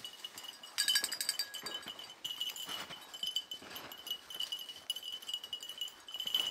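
Small bells on hunting beagles' collars jingling continuously as the dogs move about, louder from about a second in.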